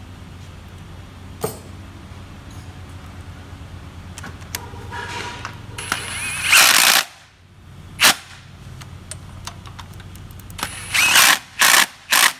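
Ridgid Octane cordless power tool driving down the engine side mount bracket bolts in short runs: a longer run about six to seven seconds in, a brief one at eight seconds, then a run and two quick blips near the end.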